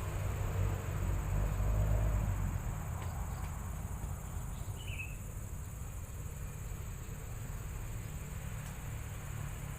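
Steady high-pitched insect chorus, like crickets, over a low rumble that is strongest in the first couple of seconds, with one short chirp about halfway through.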